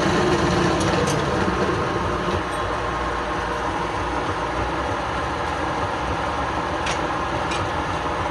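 Wood lathe running steadily. A rubbing, rasping tool or sanding contact on the spinning wood eases off about two and a half seconds in, leaving the machine's steady running noise with a few faint ticks.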